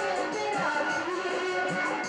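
Live qawwali music: voices singing a melody over a steady tabla rhythm.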